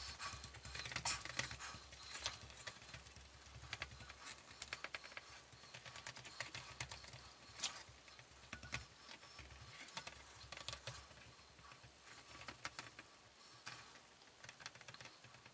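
Red silicone spatula pressing and scraping a buttery crushed-biscuit crumb base into an enamel pie dish: faint, irregular soft taps and scrapes.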